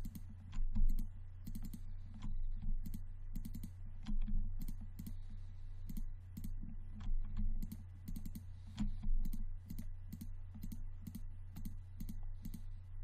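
Computer mouse clicks and keyboard key presses, coming irregularly several times a second as faces are picked on a 3D model, over a steady low electrical hum.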